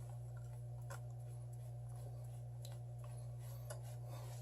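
Steady low electrical hum with a few faint light clicks and taps from small items being handled on a workbench.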